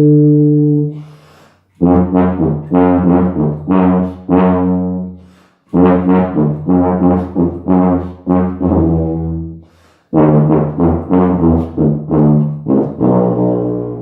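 Fiberglass Olds B-flat tuba being played. A long held low note ends about a second in. Then come three runs of short detached notes, several a second, with brief pauses between the runs.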